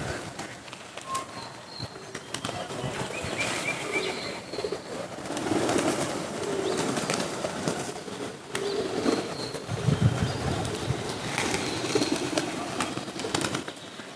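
A feeding flock of pigeons cooing low and repeatedly, with bursts of wing flapping and scattered sharp clicks.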